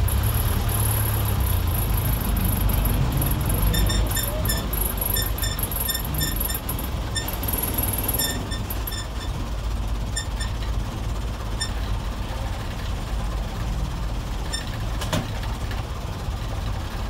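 Old Mitsubishi diesel engine of a medium bus running under way, heard from inside the cab: a steady low rumble, heaviest in the first few seconds. A run of short high-pitched chirps sounds through the middle.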